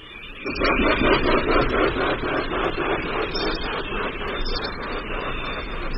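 Great hornbill wingbeats in flight: a loud, rapid run of heavy, evenly pulsing whooshes, the sound likened to a steam engine starting up. It swells in about half a second in.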